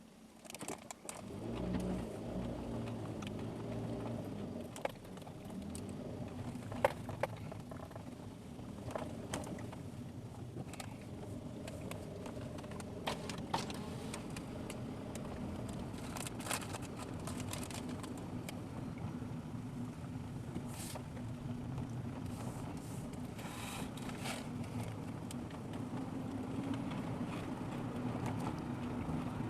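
Car engine and road noise heard from inside the car, picking up about a second in as it moves off, then running steadily along a narrow mountain road, with scattered clicks and knocks from the tyres and the car's interior.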